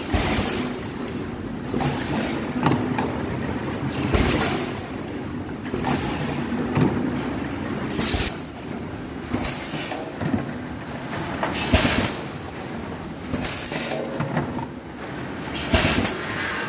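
Plastic bottle-making machine running: a steady mechanical rumble and clatter, broken every second or two by a short, loud hiss.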